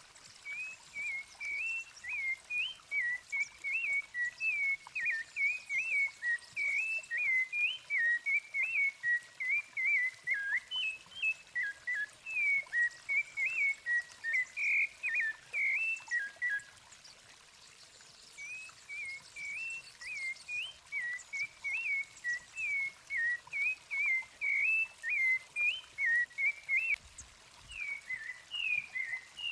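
Rufous-bellied thrush (sabiá-laranjeira) singing a long run of quick, clear whistled notes, breaking off for a second or two past the middle before the song starts again.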